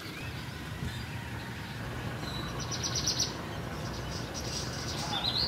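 Small birds chirping high and thin, with a quick run of about eight rapid chirps midway and a short rising chirp near the end, over steady low background noise.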